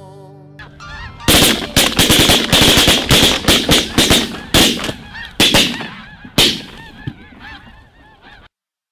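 A rapid volley of roughly fifteen shotgun blasts from several hunters firing into a flock of snow geese, with the flock honking throughout. The shooting stops about six and a half seconds in, and the geese keep calling until the sound cuts off abruptly near the end.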